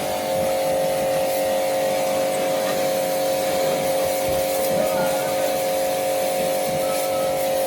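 A motor running steadily at constant speed, a hum of several tones over a noisy background.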